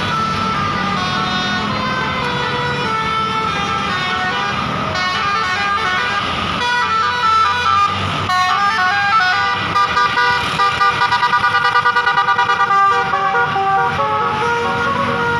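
Bus telolet horn, a Basuri multi-tone air horn, playing a tune of quickly changing notes, with a fast stuttering run of short notes about two-thirds of the way in. A bus engine drones underneath.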